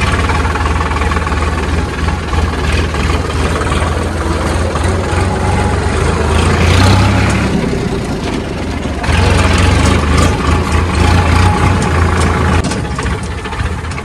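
Diesel tractor engine running, heard from the driver's seat. It gets louder about nine seconds in and drops back shortly before the end.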